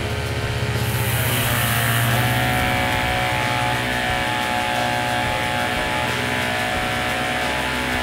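Small 12 V DC diaphragm water pump running with a steady motor hum that shifts in pitch in the first few seconds, pumping water out through an open hand spray gun.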